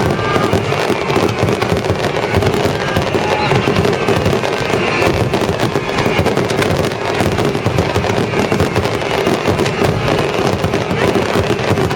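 Dense, unbroken barrage of aerial firework shells bursting and crackling in quick succession, with symphonic music playing underneath.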